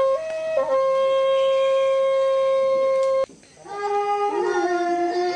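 A wind instrument playing long, steady held notes that step between a few pitches, with a short break about three seconds in before it picks up again on a new note.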